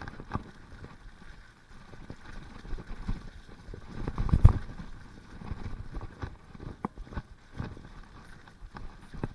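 Mountain bike rattling over a bumpy dirt trail: tyres on mud and irregular knocks and clatters from the bike, with one heavy thump about halfway through.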